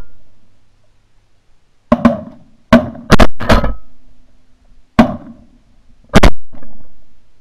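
A ragged volley of six shotgun blasts from several hunters: one about two seconds in, three in quick succession over the next second and a half, then one more at about five seconds and a last one near six seconds.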